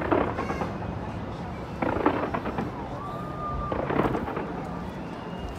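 Fireworks display going off along the Burj Khalifa: clusters of cracking bangs roughly every two seconds over a steady low rumble.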